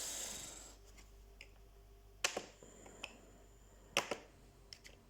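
Plastic case of an Acer Aspire VX 15 laptop being pried open with a sharp tool. A short scrape comes first, then a few sharp clicks as the case clips let go; the two loudest are about a second and a half apart.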